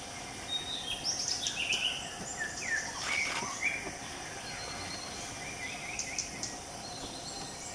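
Forest ambience: several birds chirping and whistling in short calls, busiest in the first few seconds, over a steady high hum of insects.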